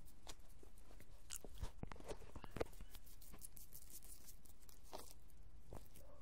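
Scattered light clicks and scuffs at irregular intervals, heaviest in the first half, over a low steady background hiss.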